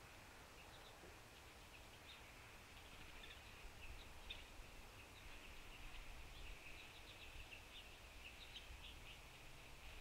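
Faint, scattered high chips and twitters of small birds calling, many short notes overlapping and growing busier after a few seconds, over a low background rumble.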